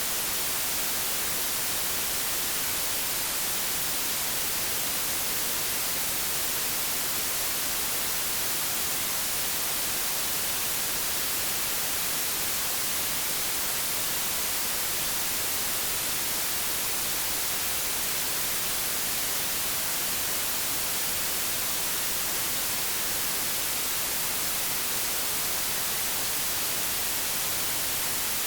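Generated white noise: a steady, even hiss, strongest in the treble, that never changes in level.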